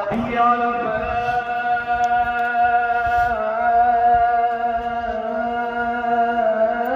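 A muezzin's solo male voice chanting long, held melismatic notes, stepping down to a lower note about three seconds in and rising again near the end.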